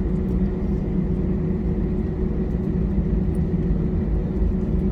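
Jet airliner cabin noise: the engines and airflow make a steady, even rumble with a constant low hum.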